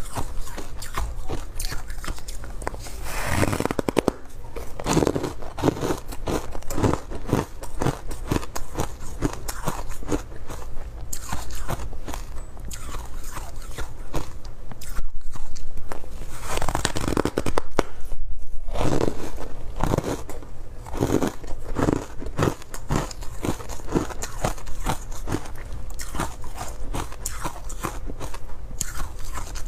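Close-miked biting and chewing of refrozen ice: a dense run of crisp crunches and crackles, with louder bites about halfway through.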